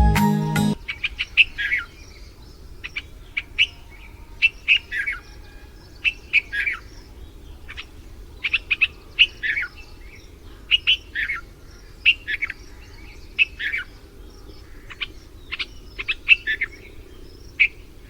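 Bulbul calling: short, bright chirping phrases repeated every second or so, many of them falling in pitch, over a faint steady low hum.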